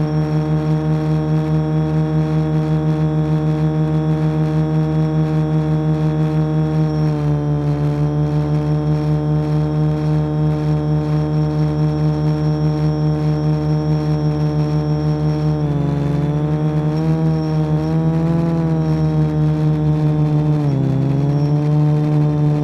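Quadcopter's electric motors and propellers running in flight, recorded by the onboard camera: a steady multi-tone hum with a fast throb. Its pitch steps down slightly about seven seconds in, then wavers up and down and dips briefly near the end.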